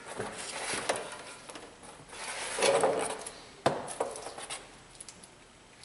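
Rubbing and rustling as a transmission pan gasket is handled and laid against the steel pan on a cardboard-covered bench, with a sharp tap a little past halfway and a few lighter ticks after it.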